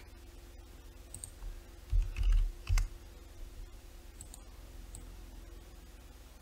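Computer mouse clicks, a few scattered sharp ones and a louder cluster with dull thuds about two seconds in, over a faint steady hum.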